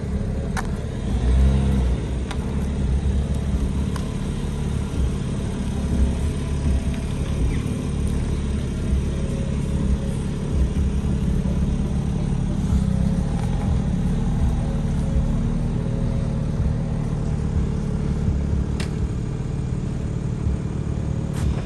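2023 BMW M3 Competition's twin-turbo inline-six running steadily through its quad-tip exhaust, rolling at low speed and then idling, swelling slightly about a second in.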